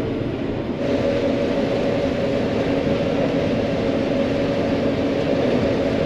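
John Deere 9500 combine running steadily while harvesting corn, heard from inside the cab: a constant machine drone with a steady hum. It grows a little louder and brighter about a second in.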